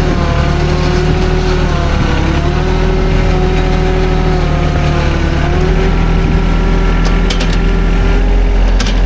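Yanmar compact tractor's diesel engine running as its front loader digs a bucketful of dirt, its pitch dipping briefly a couple of times. A few sharp clanks sound near the end.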